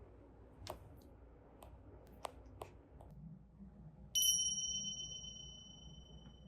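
A few light clicks, then a single bright ding about four seconds in that rings on and fades over about two seconds.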